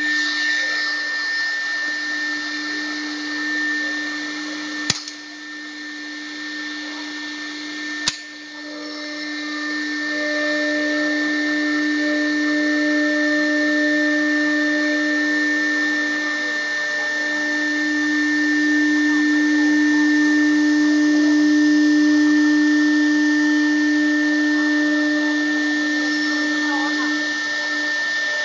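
CNC 1325 router's spindle running with a steady whine as the bit engraves PVC board, over the hiss of cutting. It grows louder about ten seconds in. Two sharp clicks come about five and eight seconds in.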